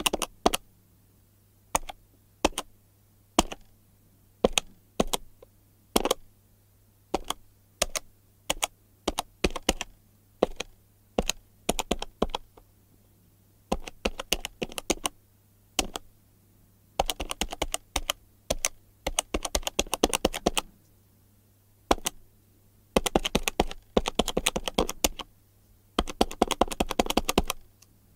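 Buttons of a hand-held plastic calculator being pressed: separate sharp clicks and pairs at first, then quick runs of many rapid presses with short pauses between.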